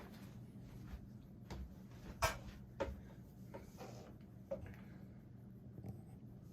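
1987 NuTone Slimline 52-inch ceiling fan coasting down after being switched off: a faint steady low hum with irregular light clicks and ticks, the sharpest about two seconds in.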